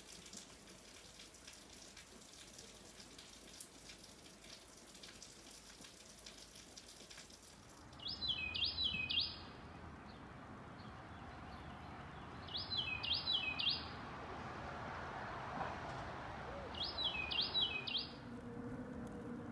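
Light rain pattering faintly, then a songbird calling three times about four seconds apart, each call a quick run of three high, down-slurred notes.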